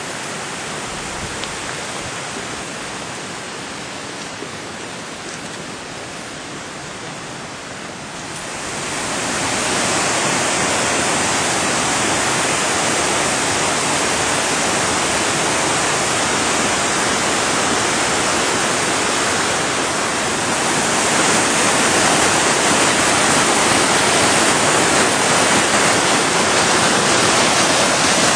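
Waterfall running high, a steady rush of falling water that grows louder about eight seconds in and again a little louder near two-thirds of the way through.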